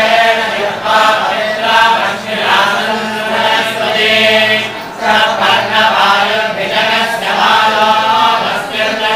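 A group of men chanting scriptural verses together in unison, one continuous recitation.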